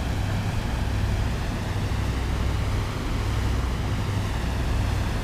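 A 42-foot trawler yacht's engines running steadily under way: a constant low drone with an even hiss over it.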